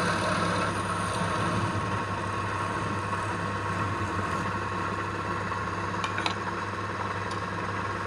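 Wood lathe running with a steady motor hum, with a few short clicks near the end.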